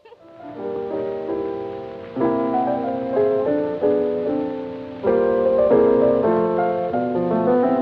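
Piano music: chords and a melody that start softly and get louder in steps about two seconds in and again about five seconds in.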